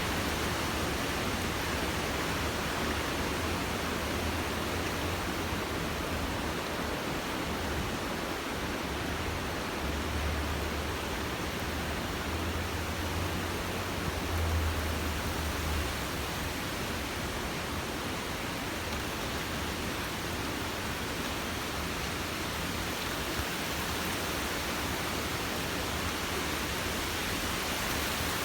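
Steady rushing noise of a storm, with a low rumble that swells about ten to sixteen seconds in.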